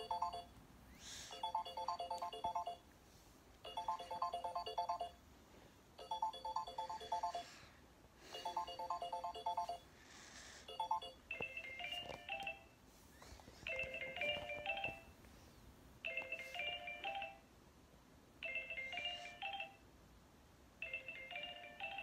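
Samsung Galaxy J3 ringtone previews playing from the phone's speaker: a short phrase of quick tinkling notes that repeats about every two seconds. About eleven seconds in it switches to a different ringtone, a higher phrase that also loops about every two seconds.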